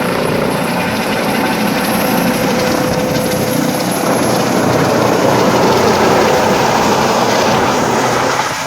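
Remote-controlled model aircraft in flight, its motor and rotor running loud and steady and swelling slightly about five seconds in.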